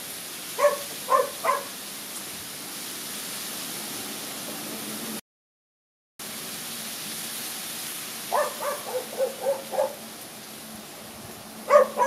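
Short, repeated animal calls in quick runs over a steady hiss: three near the start, a run of about six around eight seconds in, and more near the end. The sound drops out completely for about a second midway.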